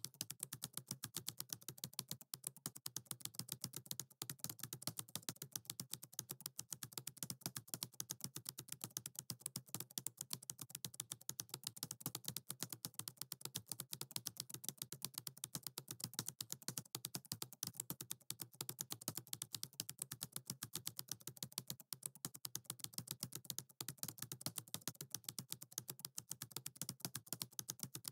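Keyboard typing: fast, even clicks, many a second, without a break.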